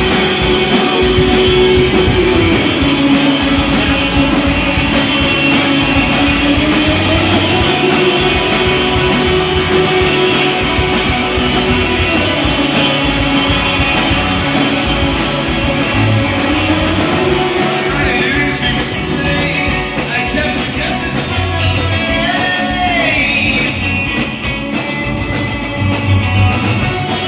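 Live rock music: a male singer holding long notes that slide slowly between pitches, over guitar accompaniment.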